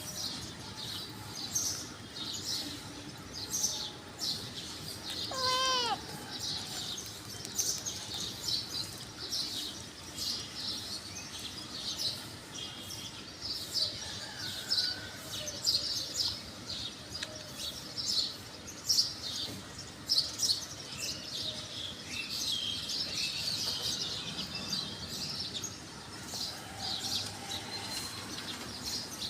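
Many small birds chirping, with quick high chirps one after another. About six seconds in, one louder, lower call sounds briefly.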